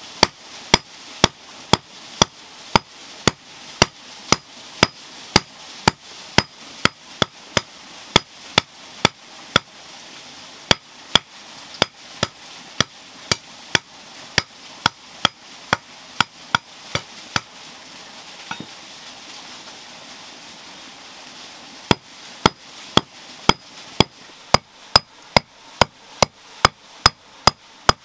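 Hammer forging iron: steady, evenly spaced metal-on-metal blows about two a second, each with a short bright ring. The strikes stop for about four seconds just past the middle, then start again at the same pace.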